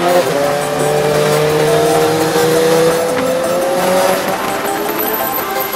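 Sport motorcycle engine running at high revs, its pitch climbing slowly as it gathers speed, then easing off near the end, with wind rush behind it.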